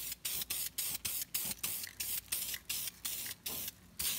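Aerosol spray paint hissing in rapid short bursts, about three a second, with a brief pause shortly before the end.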